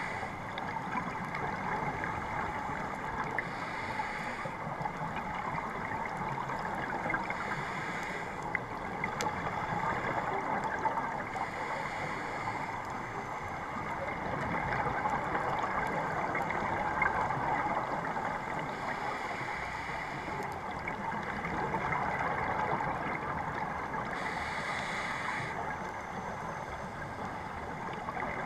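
Muffled underwater rushing heard through a GoPro's waterproof housing, with a scuba regulator's breathing and exhaled bubbles hissing up every few seconds.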